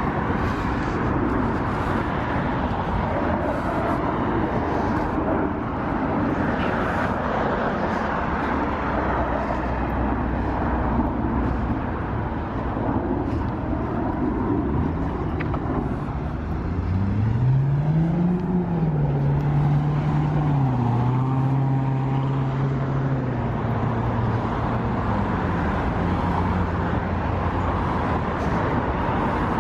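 Steady road traffic noise from passing cars. About halfway through, one vehicle's engine rises in pitch and then drops in steps as it changes gear pulling away.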